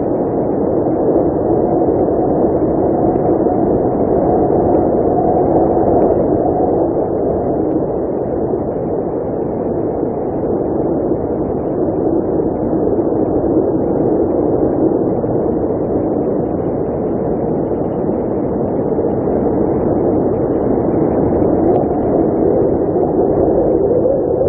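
Blizzard wind blowing steadily, a low rushing noise that swells and eases slowly.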